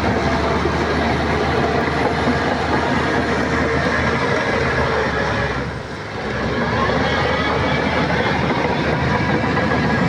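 Shantui crawler bulldozer at work, its diesel engine and steel tracks running with a steady clatter, easing briefly about six seconds in.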